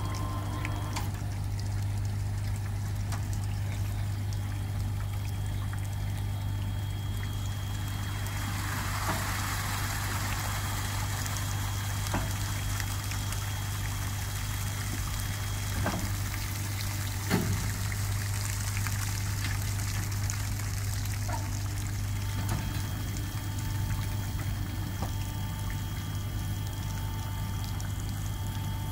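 Water pouring and trickling off an autonomous underwater vehicle's hull into the sea as its launch cradle lifts it level. Under it runs a steady low machine hum, with a few short metal knocks, the loudest about 17 seconds in.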